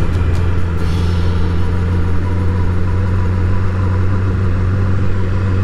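Sport motorcycle engine running at a steady cruise, a constant low hum with no change in speed.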